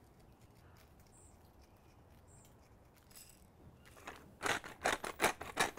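Kosher salt and black pepper being applied to raw beef ribs: a rapid run of short, sharp strokes, about four a second, starting about four seconds in after near quiet.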